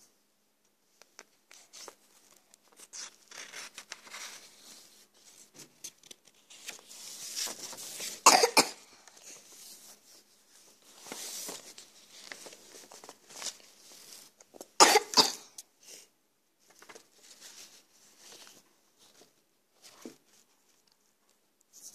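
Paper pages rustling and a phone being handled close to its microphone as a notebook is leafed through, with two louder short sounds, one about eight seconds in and one about fifteen seconds in.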